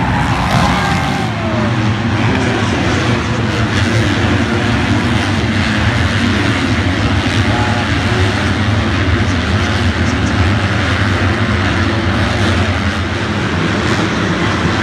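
Several motocross dirt bikes racing on the track, their engines running and revving together in a loud, steady drone.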